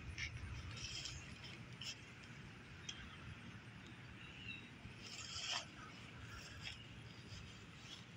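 Quiet outdoor garden ambience: a low rumble on the microphone, a few faint short bird chirps, and a soft rustle about five seconds in.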